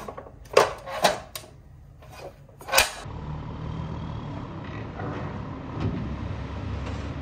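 Clicks and knocks of a plastic toy dump truck's tipper bed being tilted by hand. About three seconds in comes the steady low running of a real dump truck's engine as it tips its raised bed.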